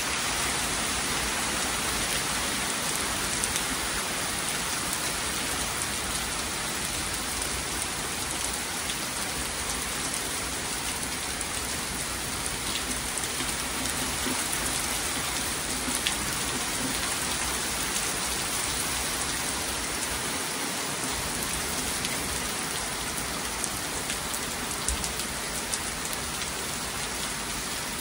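Heavy, steady rain from a hurricane rainband falling on trees and the ground, with scattered sharper ticks of single drops landing close by.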